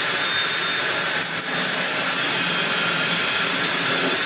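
Power drill running steadily under load, boring out stripped threads to prepare the hole for a thread-repair insert, with a steady whine; it stops right at the end.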